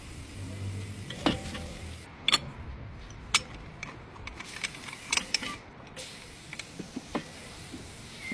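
Tools and parts being handled during front brake work: a handful of sharp clicks and knocks spread over several seconds, with a low hum under the first second or so.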